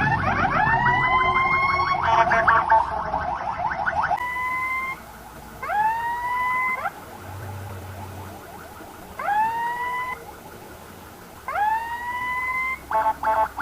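Ambulance electronic siren: rapid rising sweeps with a fast pulsing warble for about four seconds, then it cuts off and gives separate rising whoops every couple of seconds with gaps between them, breaking into a quick stutter near the end.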